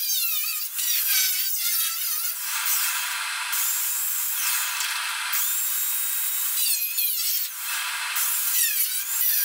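Power tool cutting into a car body's rusted sheet metal, a high-pitched whine that keeps rising and falling as the tool bites and eases off.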